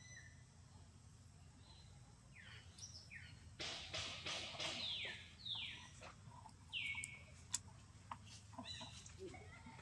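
A few high-pitched animal calls that fall in pitch, mostly in the middle stretch, mixed with a few sharp clicks.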